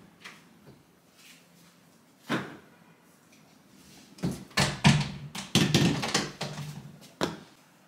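A tall kitchen cupboard door being handled as a tub is taken out: scattered knocks and a busy clatter in the middle, then the door pushed shut with a sharp click near the end.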